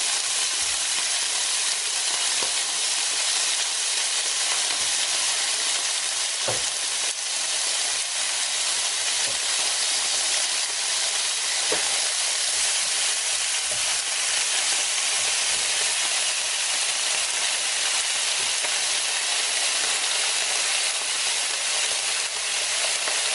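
Chunks of pork sizzling steadily on a hot tabletop Korean barbecue grill plate, with a couple of faint clicks.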